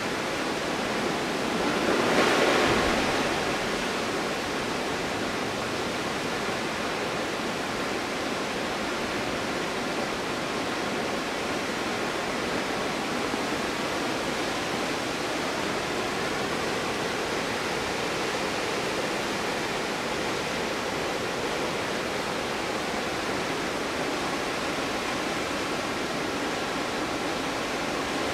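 Stuibenfall waterfall: a steady rush of falling water, with a brief louder surge about two seconds in.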